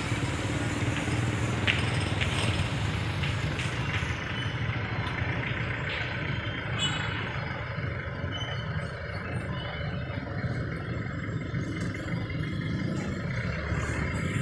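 Outdoor street ambience: a steady low rumble of traffic.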